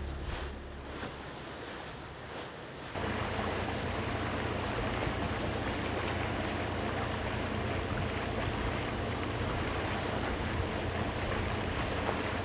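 Wind on the microphone and water washing along the hull of the three-masted schooner Oosterschelde under way, with a steady low rumble. It comes in suddenly about three seconds in, after a quieter start.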